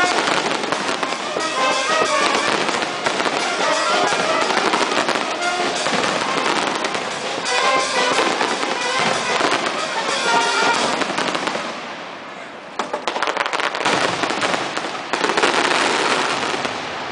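Fireworks display: dense, rapid crackling and popping from fountains and bursting shells, with music playing underneath. The crackling thins briefly about two-thirds of the way through, then comes back loud.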